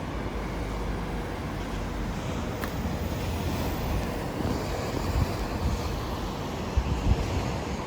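Outdoor street ambience: a steady wash of noise, with wind rumbling on the microphone and a single sharp click about two and a half seconds in.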